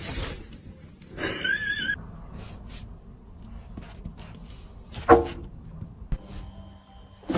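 A cat's high, wavering cry about a second in, then a short, much louder sound at about five seconds.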